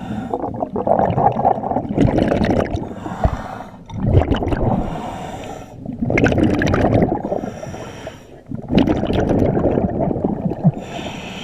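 Scuba diver breathing through a regulator underwater: bubbling exhales alternate with hissing inhales in a regular rhythm, about one breath every two seconds.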